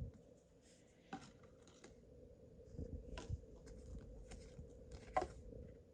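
Pokémon trading cards being handled and flipped through by hand: faint rustling with a few short card flicks, about one, three and five seconds in.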